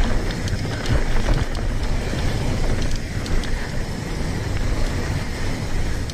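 Mountain bike rolling fast over a dirt singletrack: steady tyre noise on the dirt with scattered clicks and rattles from the bike, and wind rumbling on the microphone.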